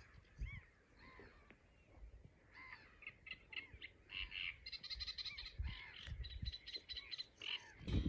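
Great reed warbler singing a run of short repeated notes, sparse at first and coming thick and fast from about a third of the way in. Brief low rumbles of wind on the microphone now and then.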